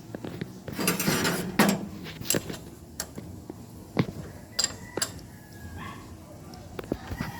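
Scattered sharp clicks and knocks of hard objects being handled, with a few short rustling bursts.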